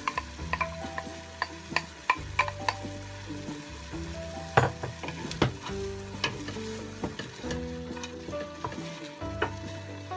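Shredded cabbage tipped into a hot stainless steel pot and sautéed, sizzling, while a wooden spoon stirs it and knocks irregularly against the bowl and pot. Soft background music runs underneath.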